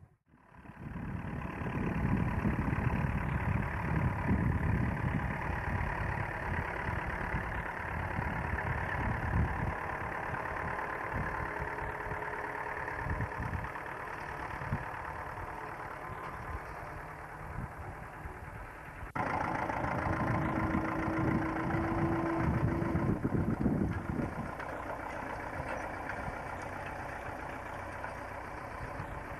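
Bukh tractor engine running steadily as it pulls a Fiona seed drill while sowing. The sound fades in at the start and changes abruptly about two-thirds of the way through.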